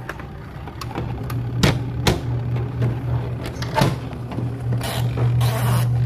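Hard plastic parts of a top-loading washing machine knocking and clicking as they are handled and fitted into the tub, over a steady low hum. Two short rushes of hiss come near the end.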